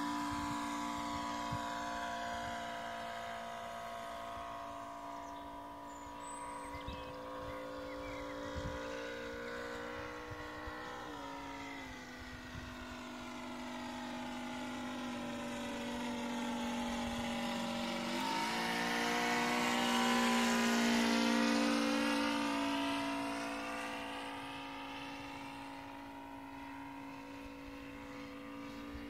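Engine of a quarter-scale radio-controlled Stearman biplane in flight, a steady drone. Its pitch drops about a third of the way in and shifts again as the plane sweeps past. It is loudest about two-thirds through, then fades as the plane flies off.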